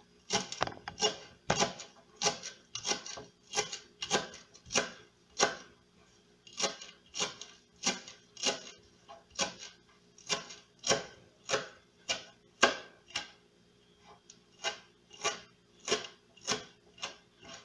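Kitchen knife chopping fresh cilantro on a plastic cutting board: a steady run of sharp taps, a little under two a second, with a brief pause about two-thirds of the way through.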